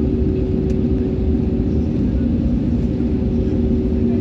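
Airliner engines running steadily, heard from inside the passenger cabin as a constant low rumble with a steady hum.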